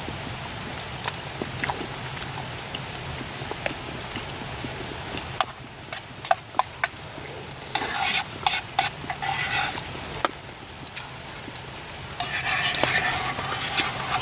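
A spoon stirring and scraping rehydrated lasagna in a canteen cup, with scattered sharp clicks of the spoon against the cup and two longer scraping stretches in the second half, over steady rain noise.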